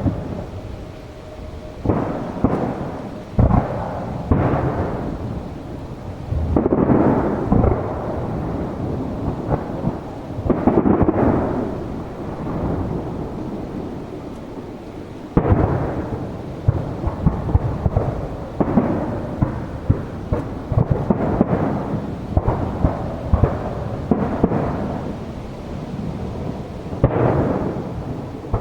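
Aerial firework shells bursting one after another, a steady run of booms every second or two with a continuous rumbling echo between them.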